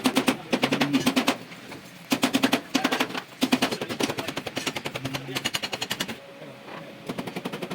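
Pneumatic air tool rattling in short rapid bursts of about a second each, many quick strikes a second, with brief pauses between bursts.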